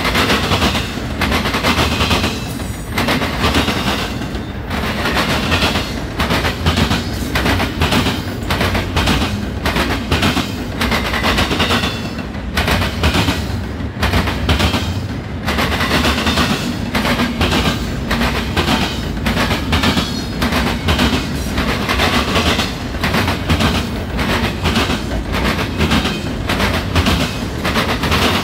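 Double-stack intermodal container well cars rolling by with a steady heavy rumble, their steel wheels banging and clacking rapidly over the rail joints.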